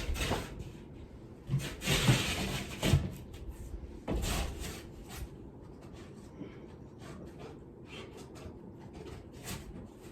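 Utility knife slicing through the paper on the back of a gypsum drywall sheet, with the panel being handled as the cut piece is separated: a few loud scraping strokes in the first half, then lighter rustles and small knocks.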